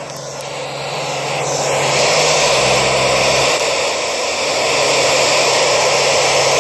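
Static hiss from a ham radio receiver tuned to the ISS's 2-metre FM voice downlink: a steady rush of noise with no voice coming through, the sign that no signal is being received at that moment.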